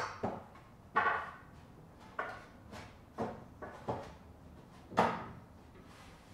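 A wooden shelf board being set down on and shifted along metal wall brackets: a string of irregular wooden knocks and clunks with a short ring. The loudest come at the start, about a second in and about five seconds in.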